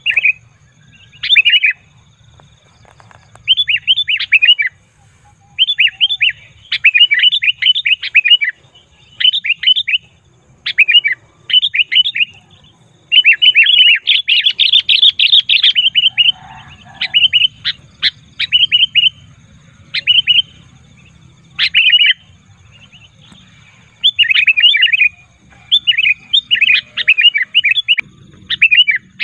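Sooty-headed bulbul (kutilang) giving noisy, rapid chattering calls in bursts of about a second, one after another with short pauses.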